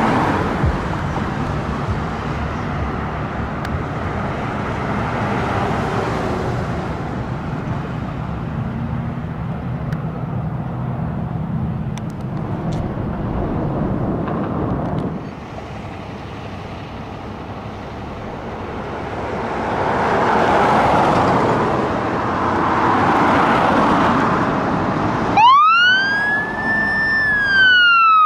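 Steady street traffic and a heavy truck's engine running for about fifteen seconds, then a quieter stretch with passing road noise. About 25 seconds in, a fire engine's siren starts wailing, rising quickly in pitch and then falling slowly, as the engine pulls out on an emergency response.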